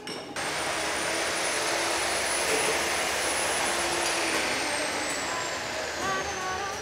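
Angle grinder on metal: a loud, steady grinding rush under a high motor whine that falls steadily in pitch from about halfway through.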